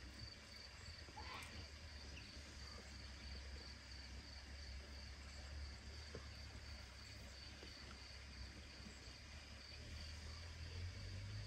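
Quiet room tone: a faint steady high-pitched whine over a low hum, with one brief faint rising squeak about a second in.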